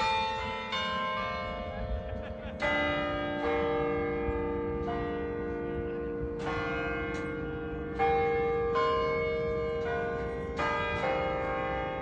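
Carillon bells in a tower playing a Christmas carol melody, one note struck after another, each ringing on and overlapping the next. A steady low rumble runs underneath.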